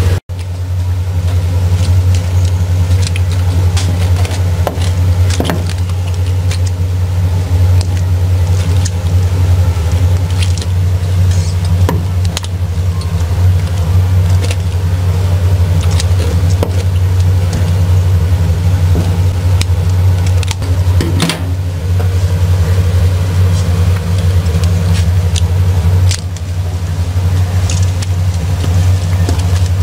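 A loud, steady low hum, like a machine running, throughout, with scattered light clicks and taps from handling raw seafood and a knife working on a plastic cutting board.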